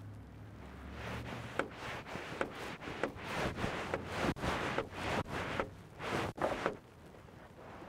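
Hand air pump being worked in quick strokes, about two to three a second, each stroke a short rush of air with a click, pushing air into a homemade pickle-jar smoke machine. The pump is broken and barely builds pressure.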